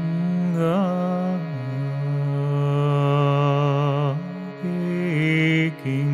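Overtone singing over the steady drone of a shruti box: a low held vocal tone, with a whistle-like overtone picked out high above it in the middle and again near the end. The voice moves through a few held notes with short breaks between them.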